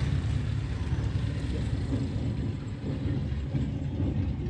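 Tractor diesel engine idling steadily, a low even rumble.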